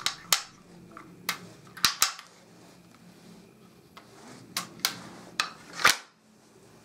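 Wooden M41A Pulse Rifle rubber band gun being worked by hand: a string of sharp wooden clacks and clicks from its moving parts, about nine in small groups, the loudest near the end.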